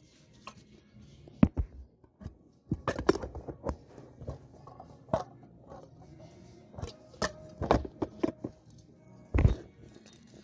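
Irregular clicks and knocks from handling a metal fidget spinner and its round metal tin, with a heavier thump near the end. Faint music plays underneath.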